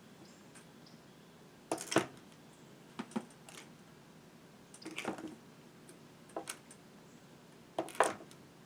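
Sharp knocks and clicks as a battery chainsaw and a corded chainsaw are handled and set down: five groups, most of them close pairs of knocks, spaced a second or so apart.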